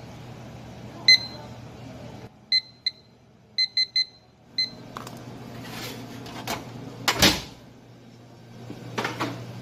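Digital kitchen timer beeping as its buttons are pressed: seven short, high beeps spread over about three and a half seconds while it is being set. After that come rustling and handling noises, with a louder swish about seven seconds in.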